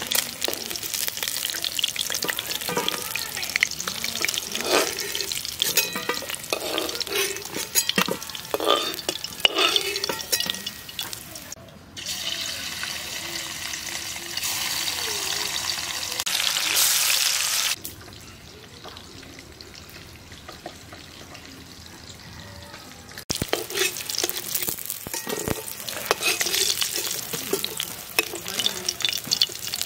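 Fish steaks sizzling as they fry in hot oil in a metal wok, with a metal spatula scraping and clicking against the pan as the fried pieces are lifted out. Partway through, the sizzle gives way to a steadier hiss for a few seconds and then a quieter stretch before the frying sounds return.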